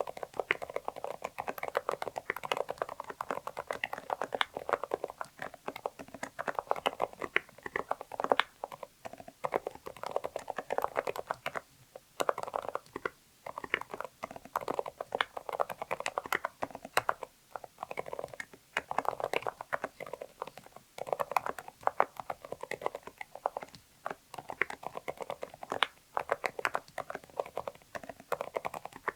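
Continuous fast typing on a Zoom65 mechanical keyboard with an aluminium plate, Kailh Deep Sea Silent Box Islet linear switches and PBT double-shot keycaps: a dense, muted patter of keystrokes with a few short pauses.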